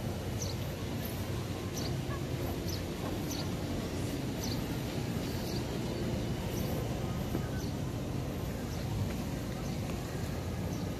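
Outdoor ambience: a steady low rumble with short, high bird chirps scattered throughout.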